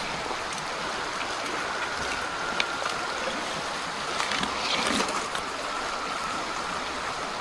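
Steady rush of flowing water, with footsteps now and then rustling and crunching through dry fallen leaves, busiest about four to five seconds in.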